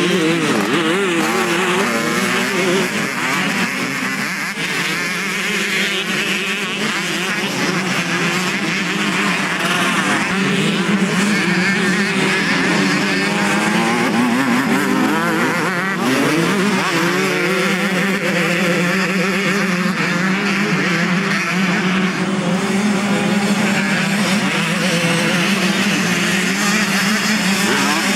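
Several motocross bikes racing by, their engines revving up and down in overlapping rising and falling notes over a steady drone.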